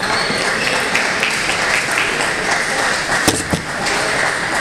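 Scattered applause and crowd noise in a large sports hall, starting suddenly, with a sharp knock about three seconds in.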